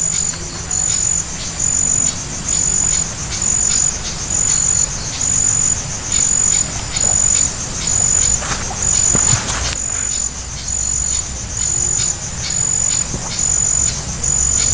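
An insect chirping close by in a steady rhythm, a high pulsed note about one and a half times a second. A brief rustling hiss about nine seconds in.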